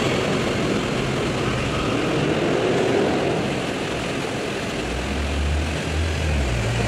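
Steady city-street background noise, with a deep low hum joining about five seconds in.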